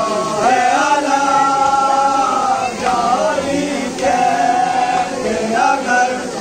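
Men's voices chanting a nauha, a Shia Muharram lament, together in unison with long held notes.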